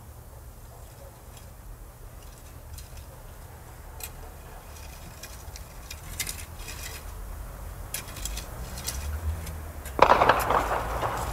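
Faint scattered clicks and clinks over a low hum, then, about ten seconds in, a sudden loud burst of rapid automatic gunfire.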